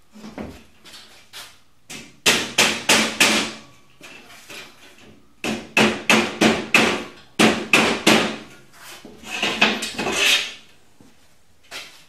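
Rubber mallet knocking a steel cross beam down into the slotted uprights of boltless steel shelving. Four runs of quick, sharp knocks, several to a run, with short pauses between.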